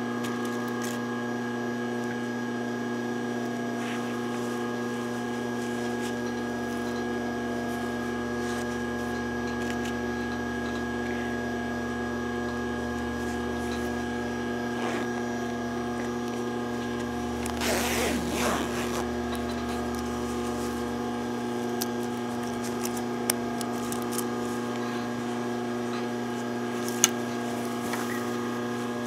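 Steady hum, with a brief rustle of terry towel fabric being handled about two-thirds of the way through and a couple of light clicks near the end.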